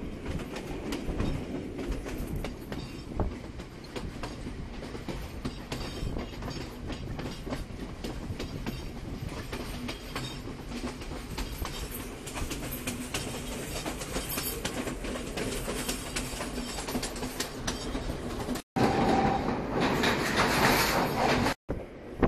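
Passenger train carriage running, heard from an open window: a steady rumble with the clatter of wheels over the rails. Near the end the sound cuts out twice very briefly, and between the cuts it is louder and hissier for about three seconds.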